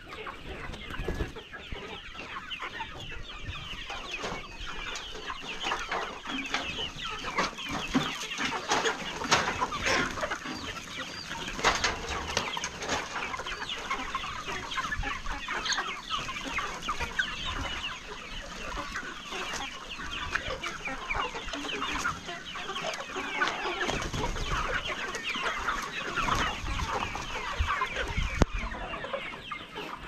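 A large flock of hens clucking together, many overlapping calls at once, as they crowd in to be fed.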